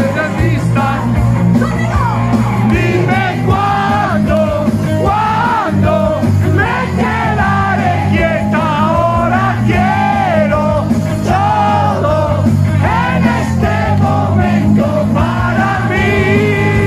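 Live rock band playing, with a woman singing lead over electric guitar and band, her voice strained toward a shout in places.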